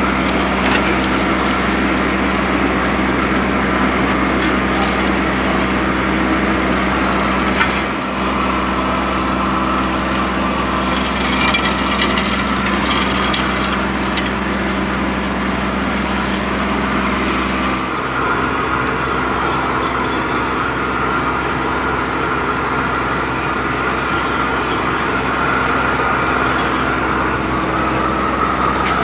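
An engine idling steadily, its hum changing slightly about eight and eighteen seconds in, with faint scratchy scraping now and then.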